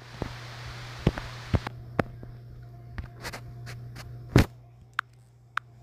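Scattered light clicks and taps, about a dozen, the loudest a little past four seconds in, over a steady low hum and a soft hiss that fades after the first second and a half.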